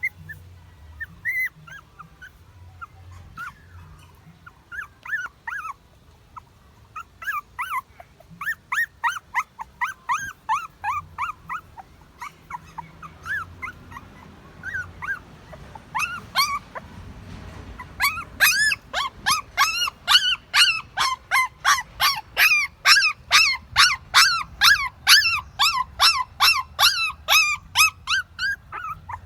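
Puppies whimpering and squealing in short high cries, scattered at first, then louder and quicker, about two cries a second, from a little past halfway.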